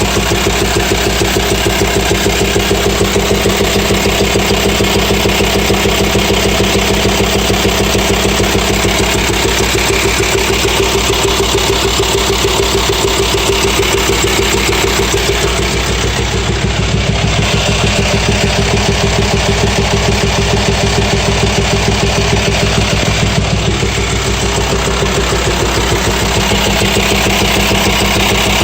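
VW T5 Transporter's 2.5 TDI AXD five-cylinder diesel idling with a steady, rapid knock. Teardown traced the knock to worn hydraulic lifters and camshaft.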